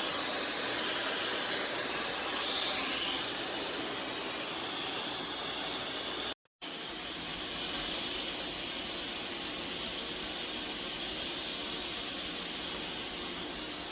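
eufy S1 robot vacuum and mop combo running with a steady whirring hiss. A higher hiss fades out about three seconds in, and the sound breaks off for a moment a little before halfway, then carries on steadily.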